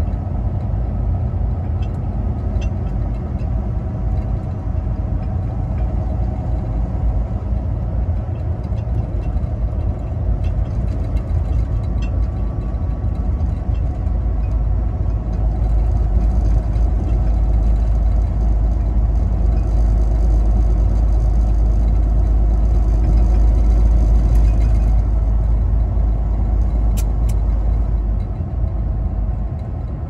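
Semi-truck engine and tyre noise droning steadily, heard from inside the cab while cruising. The low rumble grows louder about halfway through and eases again near the end, with a couple of faint sharp clicks near the end.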